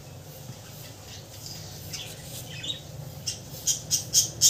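A bird chirping: a few faint calls, then from about three seconds in a quick run of sharp, high chirps, about three a second, over a low steady hum.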